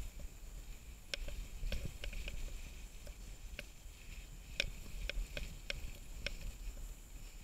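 Mountain bike riding over a rough dirt trail: irregular sharp clicks and rattles as the bike jolts over bumps, over a low rumble.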